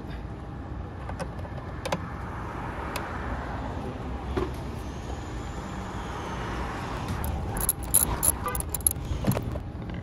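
A vehicle passing by outdoors, swelling and then fading over a few seconds. Near the end comes a quick run of light metallic clicks and clinks from small tools or parts being handled.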